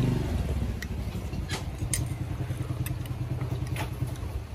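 A motor vehicle engine running close by, a low steady hum that is loudest at first and fades toward the end. Over it come a few sharp clinks of a metal spoon against a glass mug.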